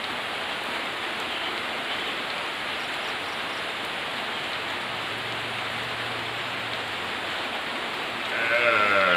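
Steady rain falling, an even hiss. Near the end, a loud pitched call with a wavering tone, about a second long, rises over the rain.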